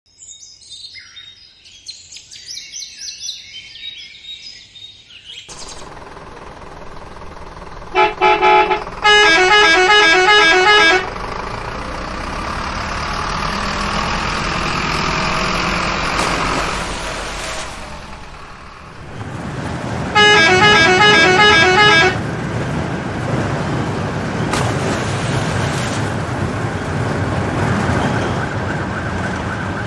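Birds chirping for the first few seconds, then a truck engine running steadily. A loud truck horn honks in rapid repeated blasts twice, about eight seconds in and again about twenty seconds in.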